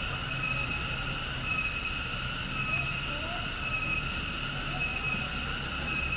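Cicadas calling in a steady high-pitched chorus, many even tones stacked one above the other, the brightest of them swelling and fading about once a second.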